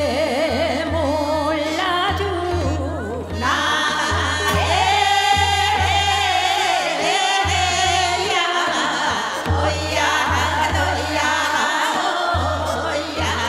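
A woman singing Seodo sori, the folk song style of Korea's northwestern provinces, in long held notes with a heavy, wavering vibrato, backed by a low, regular beat.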